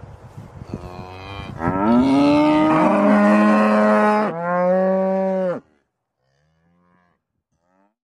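Cattle mooing: one long, loud moo starting about a second and a half in, followed at once by a second, shorter moo that cuts off suddenly.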